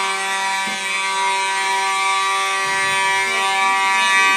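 Building fire alarm sounding a steady, unbroken tone rich in overtones.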